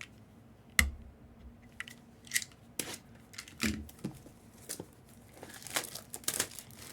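Packaging for mystery autographed baseballs being handled and torn open: a handful of separate knocks and rips, then crinkling wrap near the end.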